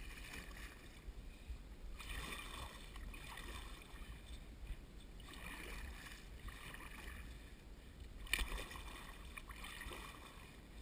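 Kayak paddle strokes in river water: soft splashing and dripping that swells about every three seconds, over a low wind rumble on the microphone.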